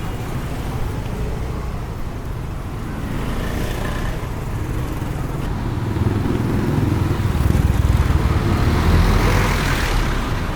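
Street traffic: a steady engine and road rumble, with a vehicle passing close that grows louder from about halfway through, peaks near the end and then eases off.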